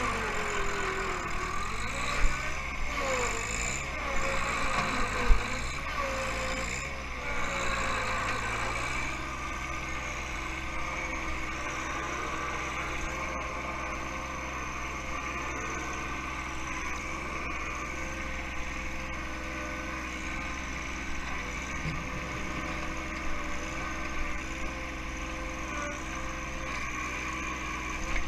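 John Deere 1-series compact tractor's three-cylinder diesel running with its backhoe at work. For the first several seconds the engine's pitch wavers up and down, with two sharp knocks about two and five seconds in. After that it settles to a steady drone.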